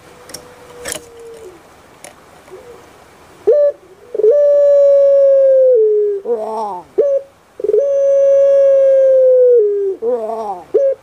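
Puter pelung (Barbary dove) giving its long drawn-out coo, starting about three and a half seconds in: each phrase is a steady note held for about two seconds that dips at the end, followed by a short wavering gurgle, twice over. Before it there are only a few faint clicks.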